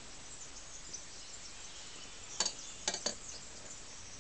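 Three sharp clicks in quick succession a little past halfway, over a faint steady hiss with scattered high chirps.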